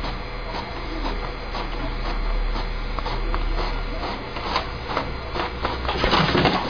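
HP inkjet printer printing: a steady low hum with regular clicks from the print head and paper feed, about twice a second. Near the end there is a louder burst of noise as the sheet feeds out.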